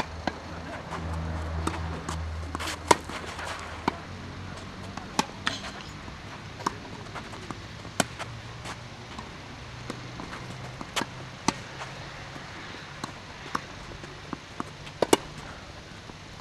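Tennis rally: sharp pops of the ball struck by rackets and bouncing on the court, roughly one a second, at an uneven pace.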